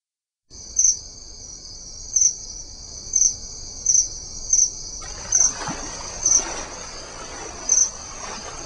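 A steady high-pitched insect chorus, like crickets, with louder chirps about once a second. From about five seconds in, a faint rumble of background noise sits underneath.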